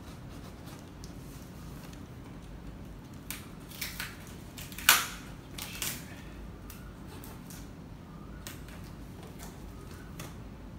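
Cardboard shipping box being cut open with a blade: packing tape slit and cardboard flaps worked loose, giving scattered clicks and rustles, with one loud sharp crack about five seconds in.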